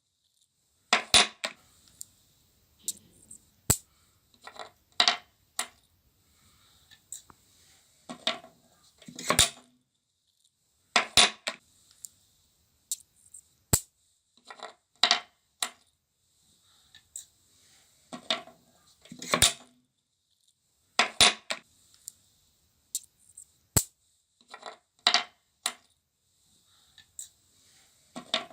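Sharp clicks and clinks of small hard objects knocking together, often in pairs, about every one to two seconds, as the parts of a homemade magnet generator are handled.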